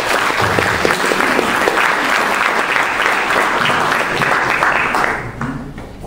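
Audience applauding: dense, steady clapping that dies away about five seconds in.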